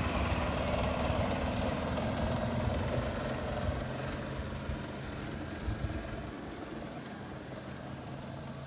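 Golf cart driving away across grass, its motor a steady low drone that slowly fades as it moves off.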